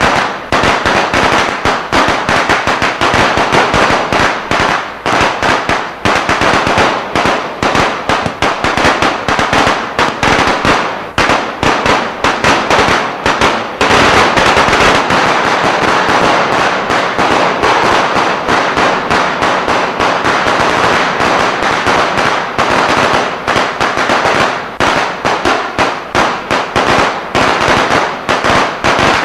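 Eco-friendly firecracker machine setting off a long, unbroken string of rapid firecracker bangs, a dense crackle that runs almost solid for a couple of seconds about halfway through.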